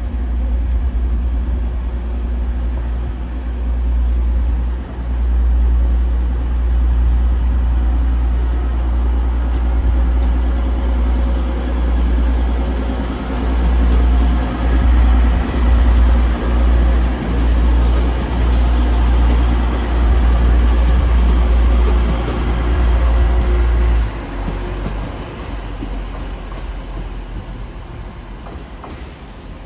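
TransPennine Express Class 185 diesel multiple unit departing, its diesel engine running under power as it pulls past and away. The sound drops clearly about 24 seconds in as the train moves off.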